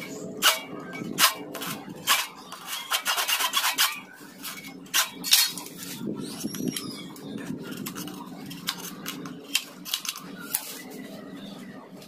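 Short scraping strokes of a hacksaw blade and a knife against a dry bamboo stalk, with a quick run of strokes about three seconds in. After about six seconds only a few light clicks.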